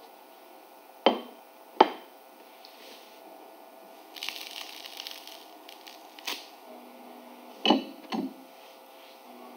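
A toasted tortilla wrap crackling as it is squeezed in the hands, about four seconds in, among a few sharp cracks that come in two quick pairs.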